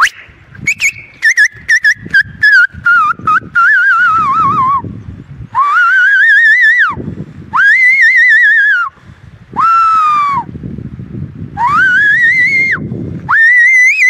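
A person whistling loudly to call bears: a warbling whistle that glides down in pitch, broken by a few sharp clicks, then five long whistled notes, each rising and then dropping off.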